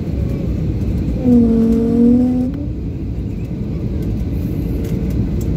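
Steady low rumble of airliner cabin noise heard from a window seat in flight. About a second in, a louder humming tone with a slight dip in pitch stands out for a little over a second, then stops.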